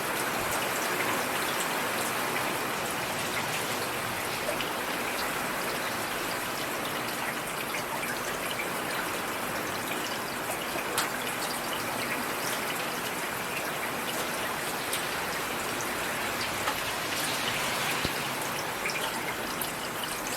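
Steady rain falling, a continuous hiss with many small drop ticks.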